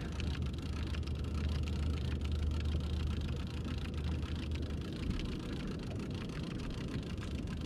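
A skiff's outboard motor running with a steady low hum, under a haze of wind and water noise.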